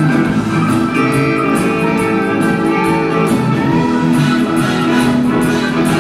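Live rock band playing: electric guitars over a drum kit with cymbals, backed by keyboards.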